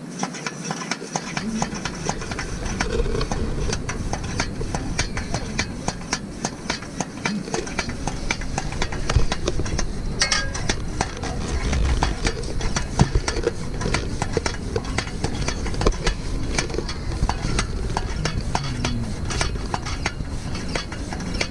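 A liquid-fuel lantern being handled and its tank hand pump worked: a dense, irregular run of small clicks and scrapes, with one sharper click about ten seconds in.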